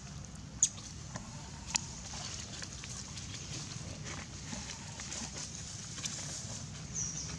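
Dry leaf litter rustling and crackling as a macaque walks over it. Two sharp clicks come at about half a second and just under two seconds in, and a short high squeak comes near the end.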